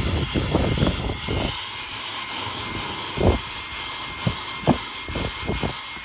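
Foppapedretti cordless stick vacuum running on the higher of its two power settings: a steady high motor whine with rushing airflow. Over it the crevice tool's brush scrubs back and forth on car floor carpet in irregular rubbing strokes.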